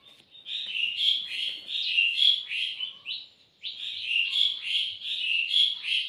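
Lovebird giving a rapid run of short, high chirps, about three a second, with a brief pause a little past halfway.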